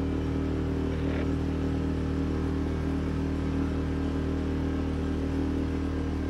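A small sailboat's engine running steadily at cruising speed, a constant low hum with an even drone that does not change.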